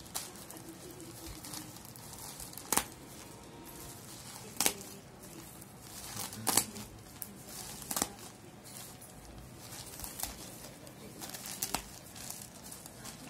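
Plastic courier mailer bag crinkling and tearing as it is cut open with a small knife, with a handful of sharp crackles a second or two apart.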